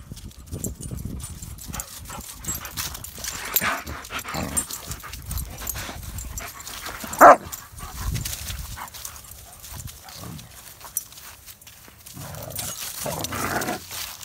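A German Shepherd and a Boxer play-fighting, vocalizing in short bursts. One loud, sharp bark comes about seven seconds in, over scuffling in dry grass and leaves.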